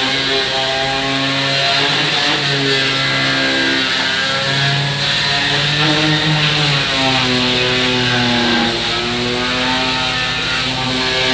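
Electric orbital sander running over a wooden closet-door panel: a steady motor whine over a gritty sanding hiss. The whine's pitch sags and recovers as the sander is pushed along, dipping most about three-quarters of the way through.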